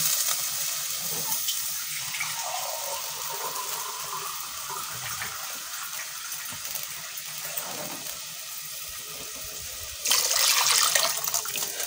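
Water just added to a hot pot of fried onion and small shrimp, hissing and bubbling and slowly quieting down. About ten seconds in, more liquid is poured into the pot with a louder splashing rush.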